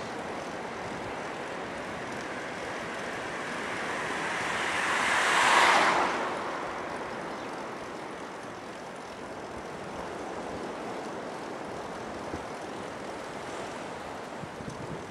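Steady wind and rolling noise from a moving bicycle, with a single whoosh that swells to a peak about halfway through and fades over a couple of seconds.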